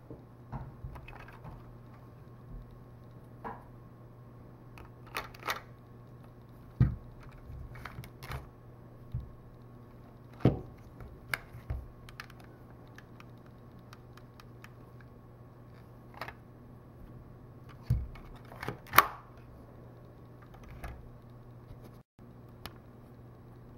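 Scattered hard plastic clicks and knocks from a Lego brick model gun being handled, picked up and set down on a table, the sharpest clack about 19 seconds in. A faint steady low hum runs underneath.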